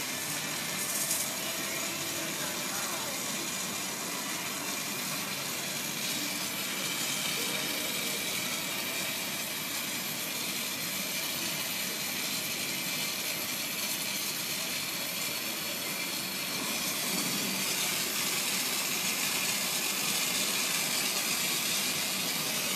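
Steady hiss of a glassblowing torch flame, a little louder in the last few seconds.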